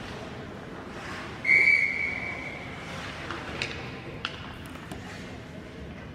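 Referee's whistle in an ice hockey game: one steady blast of about a second and a half, signalling a stoppage in play. A couple of faint sharp clacks follow over the low, steady murmur of the rink.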